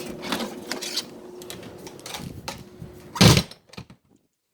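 Light clattering and clicks over a thin steady hum, then one loud thump about three seconds in, after which the sound cuts to silence.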